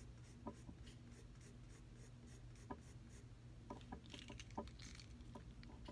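Faint pencil scratching on sketchbook paper while a curved outline is sketched, with a few light ticks and a short rustle about four seconds in.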